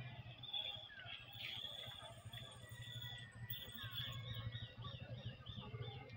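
Birds chirping and calling, with a quick run of about half a dozen repeated notes near the end, over a faint low engine hum from motorcycles passing on the road.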